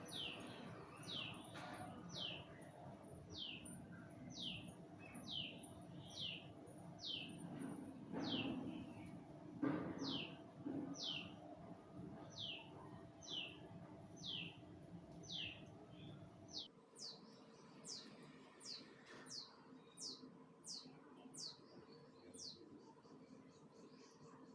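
A bird calling over and over, each call a short high note sliding downward, about one and a half calls a second. A low background rumble stops about two-thirds of the way in while the calls go on.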